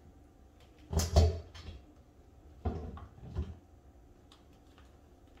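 A round decorative sign knocking and bumping against a kitchen range hood as it is hung and adjusted: a loud double knock about a second in, then a few softer knocks around three seconds in.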